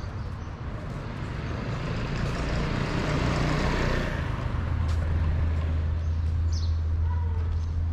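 Motor vehicle in city traffic passing close by: its noise swells about three seconds in, then a steady deep engine hum holds from about halfway through.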